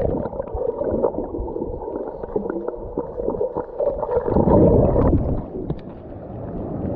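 Muffled sloshing and gurgling of sea water around a camera held at or under the water surface, with a louder surge about four and a half seconds in.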